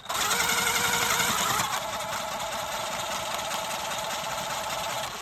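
Cordless power tool motor running steadily under load, backing off the adjuster bolt to slacken the drive belt. Its pitch drops slightly about a second and a half in.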